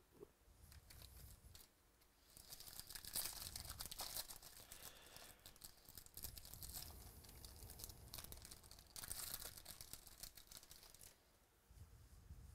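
Foil-lined wrapper of a baseball card pack being torn open and crinkled by hand, in three stretches of tearing and crinkling.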